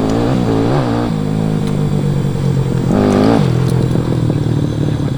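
Small motorcycle engine running and being revved, its pitch rising and falling, with a louder rev about three seconds in.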